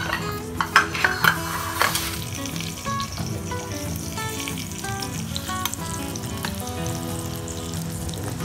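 Sliced onion rings sizzling as they fry in butter in a pan. A few sharp clicks of metal tongs within the first two seconds as the rings go in, then a steady sizzle.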